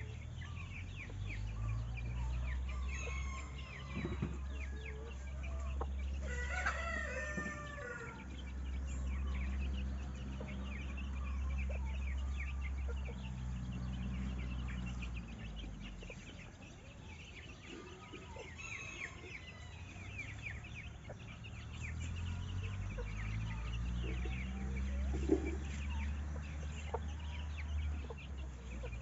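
A rooster crowing once, about six to eight seconds in, among chickens and small birds chirping. A low steady hum sits underneath, fades out around the middle and comes back later.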